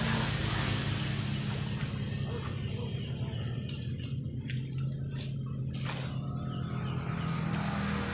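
Shallow water running in a small stone-lined irrigation ditch as a steady low rumble, with a steady high-pitched animal call above it. Several sharp ticks come about four to six seconds in.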